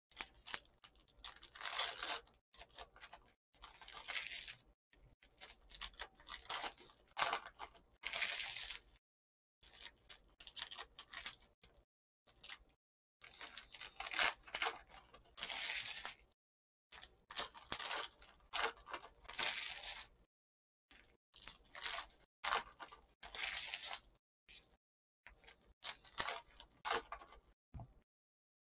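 Foil trading-card pack wrappers crinkling and tearing open by hand, with the cards inside being handled. The sound comes in irregular crackling bursts with short silent gaps between.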